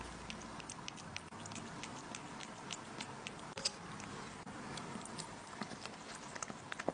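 A cat crunching and chewing small dry treats: irregular sharp crunches, several a second.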